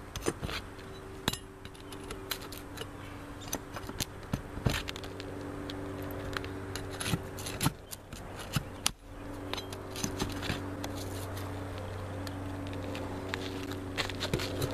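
Flat pry bar clicking, clinking and scraping against roofing nails and gritty asphalt shingles as the nails are pried out from under the shingles, in irregular short strokes. A steady low hum runs underneath and cuts out briefly about nine seconds in.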